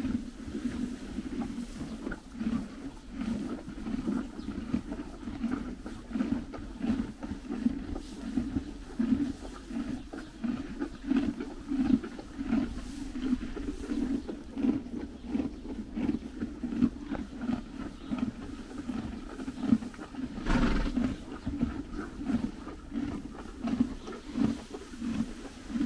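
Horses chewing hay close up: a steady, rhythmic crunching and grinding, about two chews a second. About three-quarters of the way through there is one louder thump.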